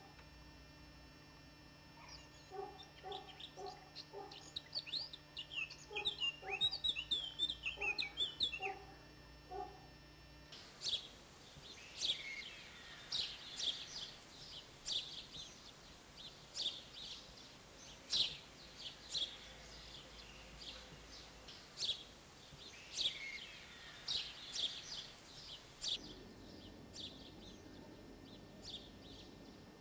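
Birds chirping and tweeting, with short, regularly repeated lower calls like clucking domestic fowl through about the first ten seconds. After an abrupt change about ten seconds in, busy high chirping of small birds continues, with an occasional falling whistle.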